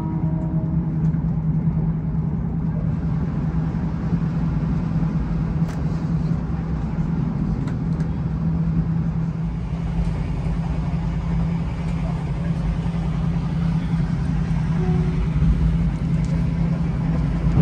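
Steady drone of a moving vehicle heard from inside, a constant low hum over an even rumble.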